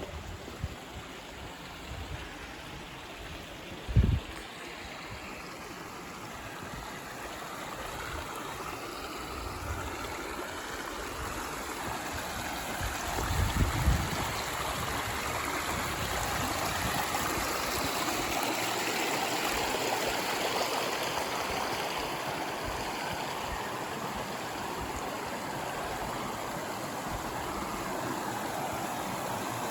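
Creek water running steadily, growing louder about a third of the way in and staying loud. Two short low thumps break in, one a few seconds in and one near the middle.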